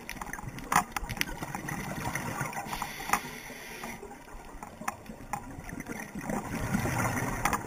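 Underwater sound on a scuba dive: a steady water hiss with scattered sharp clicks, and a low bubbling rumble of a diver's exhaled regulator bubbles building near the end.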